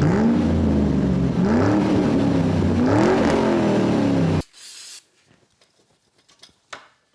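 An engine revving in three or four throttle blips, its pitch rising and falling, then cutting off abruptly about four seconds in. After that there is a short hiss, then near silence with a few faint clicks.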